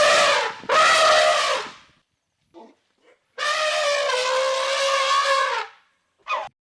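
An animal calling: a series of loud, pitched calls. There are two in the first two seconds, then a steady call lasting about two seconds, then a short one near the end.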